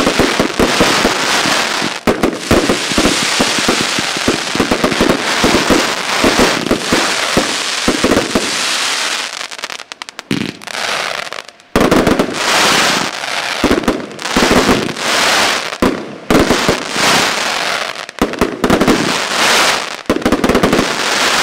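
Firestar Rampage XL 136-shot fireworks cake firing: a dense run of shots and bursting stars for the first eight seconds or so, then a short lull about ten seconds in, then loud volleys of bursts roughly every two seconds.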